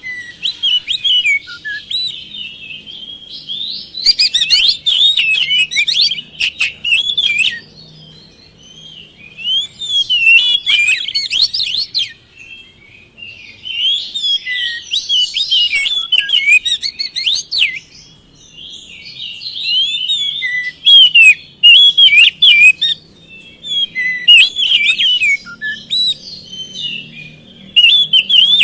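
Oriental magpie-robin singing: phrases of rapid, varied whistles and chirps a few seconds long, broken by short pauses of a second or two.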